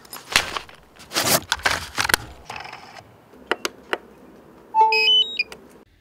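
Zipper on a fabric carrying case pulled open in several quick strokes. A few sharp clicks follow, then near the end a short sequence of electronic start-up beeps at changing pitches.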